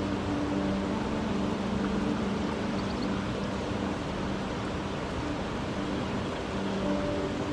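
Steady rushing water noise, like surf or a stream, with soft held low notes of ambient music fading in and out over it.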